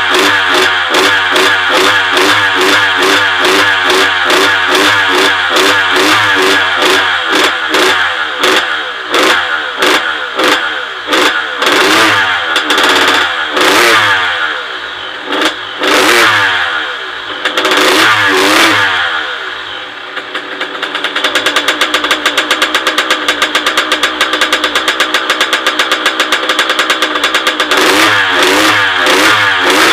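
Honda CR85R's 85 cc two-stroke single-cylinder engine on a stand, revved in repeated throttle blips. The revs sag about two-thirds through, then it settles to a fast, even idle before the blipping resumes near the end. The blips are clearing oil that had pooled in the cylinder, and it bogs a little, which the owner puts down to jetting not yet set.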